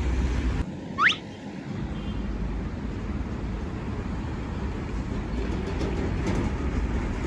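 Steady vehicle noise, with a short loud whistle-like sound sweeping sharply upward in pitch about a second in.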